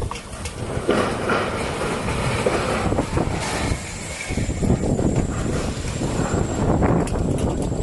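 Strong storm wind gusting and buffeting the microphone in a continuous rushing rumble, with scattered knocks and rattles of blown debris.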